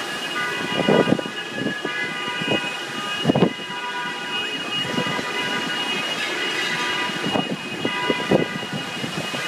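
Many car alarms sounding at once across a flooded parking lot, their steady tones overlapping. The filmer guesses floodwater is shorting the cars' circuits. Wind gusts buffet the microphone a few times.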